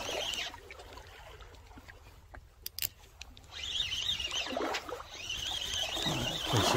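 Spinning reel being cranked to bring in a fish that has just bitten. A few sharp clicks come a little over halfway through, then a steady wavering whir from the winding reel for the last few seconds.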